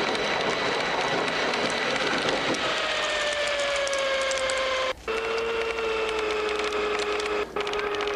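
A jeep engine running at high revs in a steady whine, its pitch sagging slowly and then holding. Two brief breaks cut into it.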